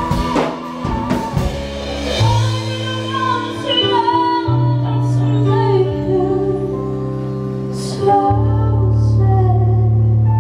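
Live band playing a pop song: a woman sings lead over bass guitar, keyboard and drums, with backing singers. Drum hits in the first couple of seconds, then long held bass notes and chords under the sung line.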